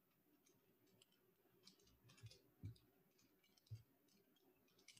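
Faint computer keyboard keystrokes, a few scattered, irregular clicks.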